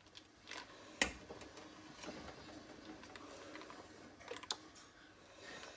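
A few light clicks of a metal spoon against a pot of mashed potatoes as small pieces of cream cheese are added, one about a second in and a pair near the end.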